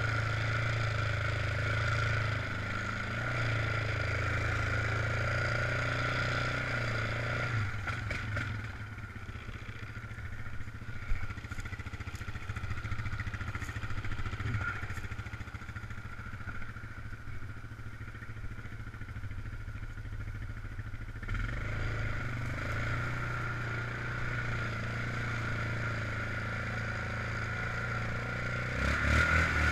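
ATV engine running as the quad works through deep mud ruts, with a steady high note over the low engine sound. The high note drops out for about thirteen seconds in the middle, with a sharp knock about 11 seconds in, then comes back and the engine revs up near the end.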